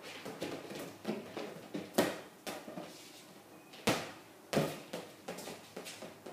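A ball being kicked and bouncing on a hardwood floor, with quick running footsteps; the loudest thuds come about two, four and four and a half seconds in.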